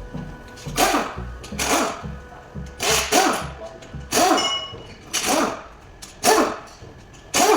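Background music with a bass line and a regular beat of sharp hits about once a second.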